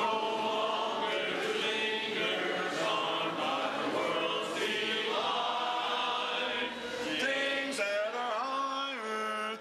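A church congregation singing a hymn together, several voices holding and moving between sustained notes.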